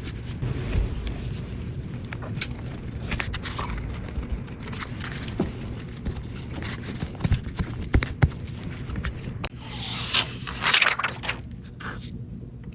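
Handling noises of a phone repair: scattered clicks, taps and scraping of small tools and parts, with a louder stretch of scraping about ten seconds in.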